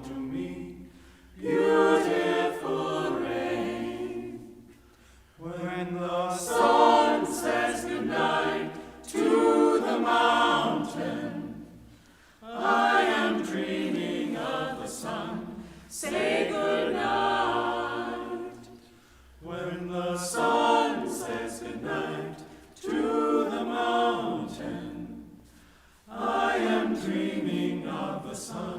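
A vocal ensemble singing a cappella in repeated phrases of about three seconds, each loud at its onset and fading away, with brief breaks between them.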